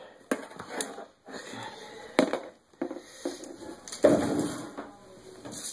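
Handling noise from unpacking a hot water dispenser: a few sharp clicks and knocks as the chrome faucet and its parts are handled and set down, with a brief louder scuffing sound about four seconds in.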